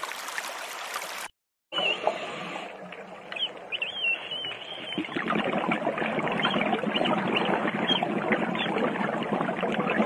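A steady hiss that cuts off about a second in. After a short break, a dense, busy chatter of many short animal calls follows, with a few wavering whistled notes about three seconds in.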